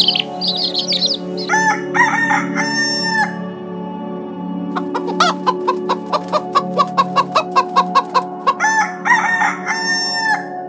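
Quail chicks peeping for about a second, then a rooster crows, about a second and a half in and again near the end. Between the crows comes a quick run of short clucks, about three a second.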